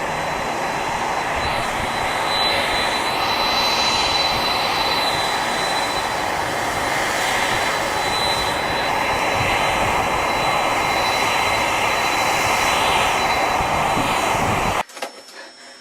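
Steady loud rushing noise with a thin high whine held throughout, cut off abruptly near the end.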